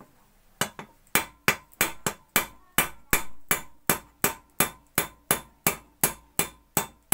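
Hammer tapping lightly and evenly on the end of a steel valve spanner set down the pump barrel of a kerosene stove, about three metal-on-metal strikes a second with a slight ring. The taps drive the spanner home into the pump's splayed valve so that the valve can be unscrewed.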